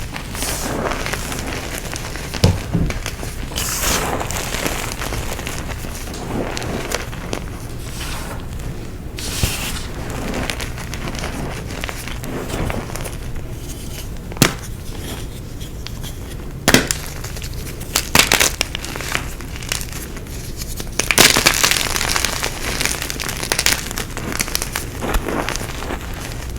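Dyed gym chalk being crushed: irregular crunching and crackling, with a few sharp snaps and a louder burst of crunching about three quarters of the way through.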